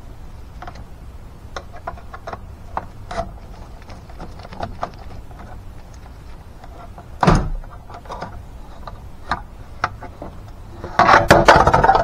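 Hands and tools working at a car's interior door panel: scattered light clicks and taps, a sharp knock about seven seconds in, and a loud clattering rattle near the end.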